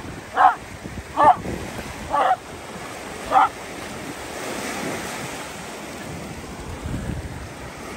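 Small Cairn terrier giving five short, sharp barks in the first few seconds, then falling quiet. Beneath the barks, Gulf surf washes steadily onto the sand, with wind on the microphone.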